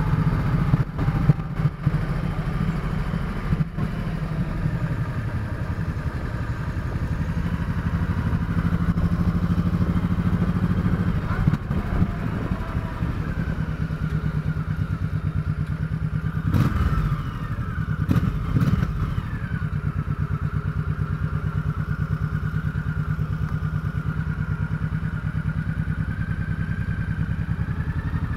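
Chopper motorcycle engine running steadily under way, with two short sharp clatters a little past the middle.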